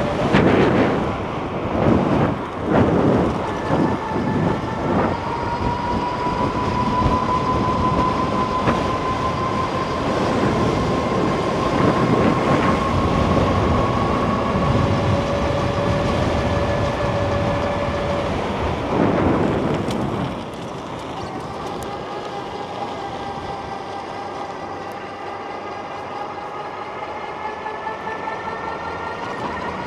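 Electric bike motor whining, its pitch climbing slowly as the bike gathers speed, over a loud rumbling noise. About two-thirds of the way through, the whine drops lower and the rumble eases, then the whine climbs again.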